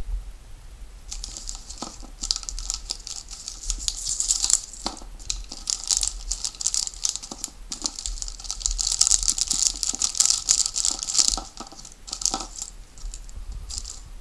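Thin clear plastic bag crinkling and crackling as it is torn open and a steering servo is pulled out of it, in two spells of handling with the louder one about two thirds of the way through.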